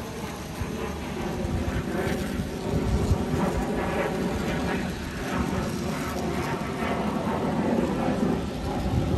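Airplane flying overhead, a steady rumble that swells a few seconds in.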